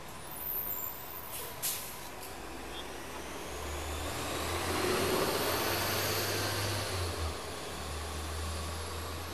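A vehicle passing on the street, its engine and road noise swelling to loudest about five or six seconds in and easing off, over a low steady hum. A couple of short hisses come about a second and a half in.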